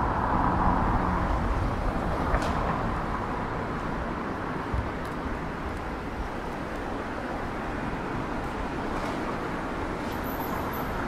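City street traffic noise. A vehicle passes close by at the start and fades over the first few seconds into a steady traffic background, with a short click about two seconds in.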